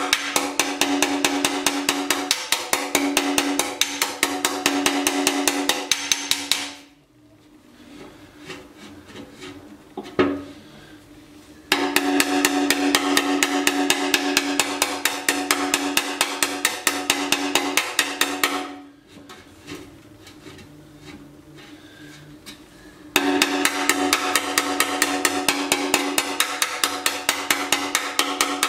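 Hand hammer striking a dented steel motorcycle petrol tank that is worked over a steel bar held in a vise, knocking the dents back out; each blow sets the tank ringing. The blows come in quick, steady runs that stop twice for several seconds, with a single knock in the first pause.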